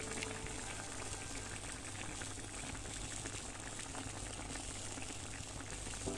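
Chicken and vegetables simmering in sauce in a pan: a steady bubbling with small scattered pops.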